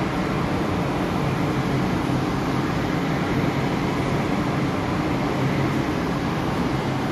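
Steady low rumble with a hiss over it: the background noise of a metro station platform, with no change in level.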